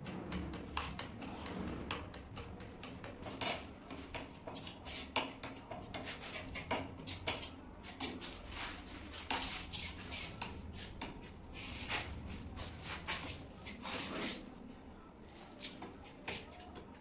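Metal putty knife scraping and clicking against a ceramic tile as it mixes a dark stone adhesive paste, in quick irregular strokes.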